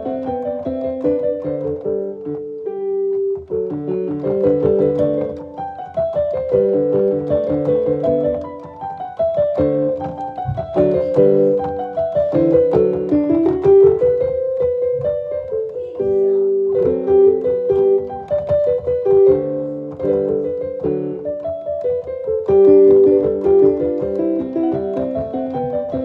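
Background piano music, a continuous flow of notes.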